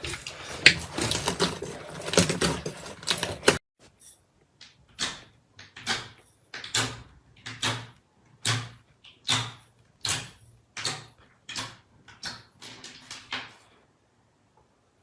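Slime being squeezed and worked by hand. For the first few seconds it makes a dense run of crackly squishes. After a sudden cut come separate squishes, about one and a half a second, which stop shortly before the end.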